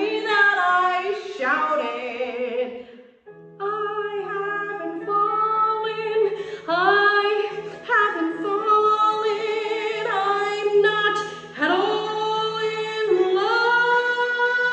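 A young woman singing a musical-theatre song solo, in long held, belted notes with vibrato, scooping up into several notes. There is a short breath break about three seconds in.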